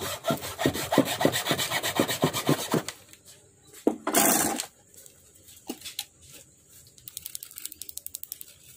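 Rapid clicking and rubbing as the turquoise plastic fins of a handmade wooden snakehead lure are worked by hand against the wooden body, about five clicks a second. A short rush of noise comes about four seconds in, and faster, fainter clicking comes near the end.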